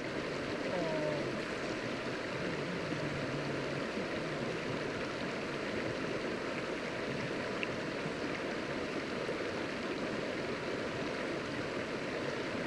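Shallow river water running steadily over stones, an even rushing.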